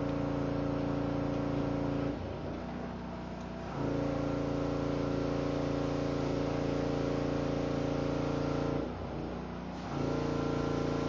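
Portable generator running a power washer: a steady engine hum. Twice it drops away and goes quieter for a second or two before coming back.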